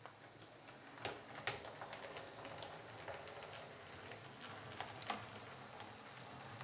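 H0-scale model electric locomotive running over the track and points: a low motor hum and rolling noise that grow louder as it approaches. Irregular sharp clicks come from the wheels crossing rail joints and turnout frogs, the loudest about a second and a half in and about five seconds in.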